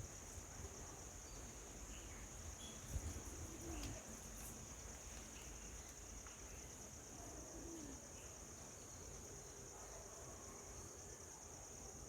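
Steady high-pitched drone of insects, with a brief low thump about three seconds in.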